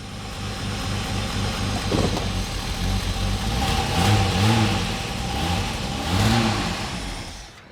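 Holden VS Commodore's 3.8-litre L36 Ecotec V6 running in gear with a misfire, its revs rising and falling a few times before the sound drops away near the end. The owner suspects a worn camshaft.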